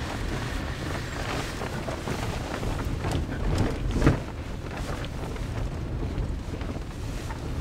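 Interior noise of a vehicle driving off-road: steady engine and tyre rumble with knocks and rattles as it goes over bumps, and one loud jolt about four seconds in.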